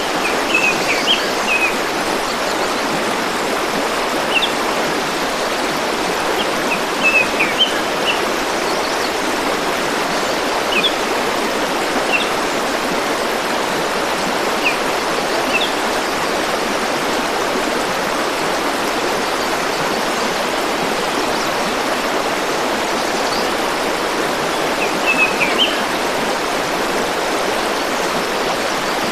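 A forest stream rushing steadily over stones, with short high bird chirps breaking through now and then, most in a cluster about seven seconds in and again near the end.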